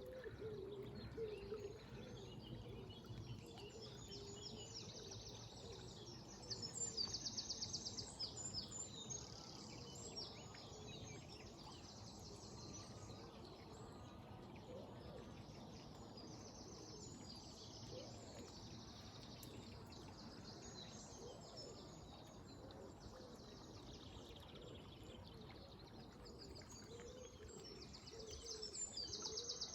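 Several songbirds singing in the early-morning chorus, with a loud fast trill about seven seconds in and another near the end, over the steady low rush of flowing river water.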